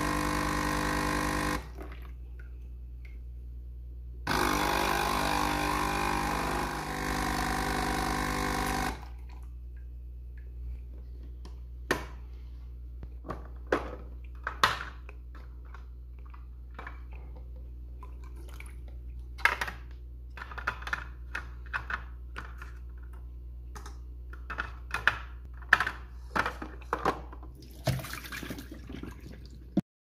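Nespresso Krups Inissia's pump buzzing loudly as it pushes water through the empty machine into a jug, a rinse flush for first use. It stops about a second and a half in and runs again from about four to nine seconds. After that come scattered plastic clicks and knocks as the capsule container is handled.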